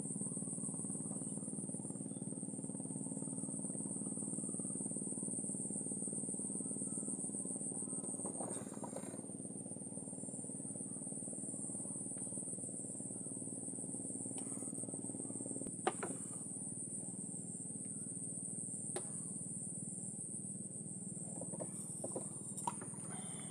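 Steady high-pitched chorus of crickets or other night insects, over a low steady hum, with a few faint clicks and knocks near the end.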